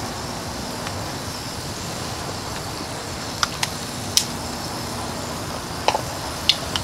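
Butter and chicken fat sizzling in a cast iron Dutch oven as a steady hiss. Several sharp pops and crackles come from about three seconds in.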